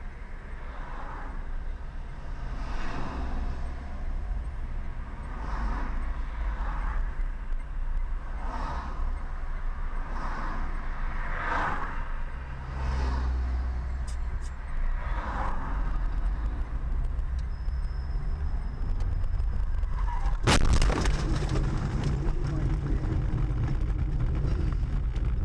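Car driving in traffic, heard from inside the cabin as a steady low engine and road rumble. About twenty seconds in comes a sudden loud collision impact, and noise carries on after it.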